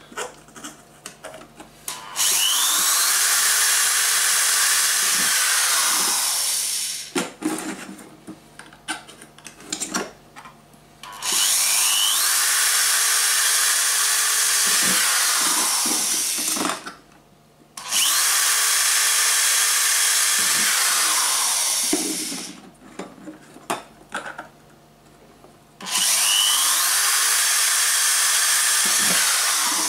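Power drill drilling holes in an LED-strip channel: four runs of several seconds, each spinning up with a rising whine and winding down at the end, with small clicks and handling noises between.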